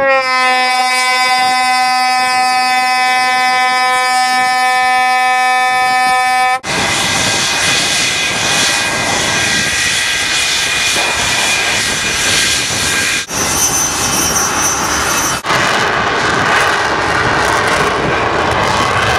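A scramble alarm horn sounds one steady, held tone for about six seconds. It then gives way to the loud rush of an English Electric Lightning's twin Rolls-Royce Avon turbojets running, broken by two brief cuts later on.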